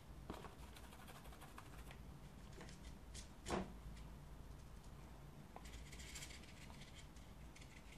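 Faint scratching of a small watercolour brush dragging and dabbing across paper, with scattered small clicks and one sharper tap about three and a half seconds in, over a low room hum.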